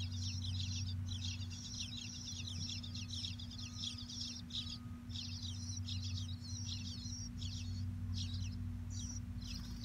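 Bluebird nestlings begging inside a nest box as a parent feeds them at the entrance: a fast, continuous run of short, high, scratchy calls. A steady low hum runs underneath.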